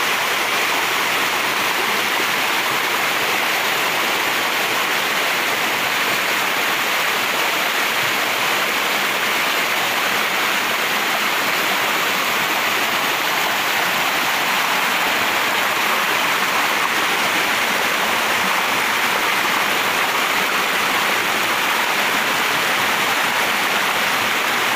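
Small waterfall: water rushing steadily over rocks into a pool, heard from right beside the falling water.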